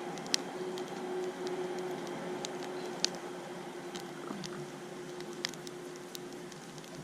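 Hardwood campfire burning, a steady hiss broken by scattered sharp crackles and pops, the loudest about a third of a second in and at three seconds. A faint steady hum runs underneath.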